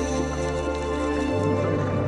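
Background music: slow ambient pads with long sustained notes, and the bass note changes about a second and a quarter in.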